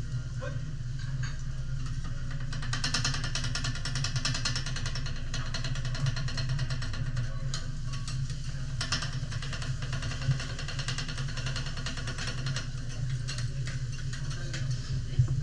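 Steady low hum of kitchen ventilation over a teppanyaki griddle. Food hisses and sizzles on the hot steel plate, strongest for several seconds from near the start. Twice a metal spatula clinks sharply on the griddle.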